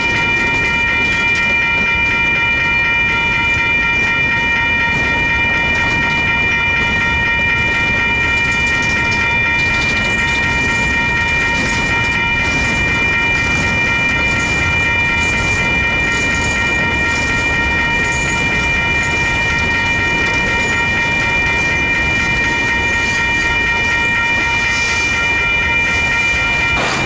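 Freight cars rolling past on the rails with a steady low rumble and wheel clatter, with the grade crossing's warning bell ringing over it as a steady high tone.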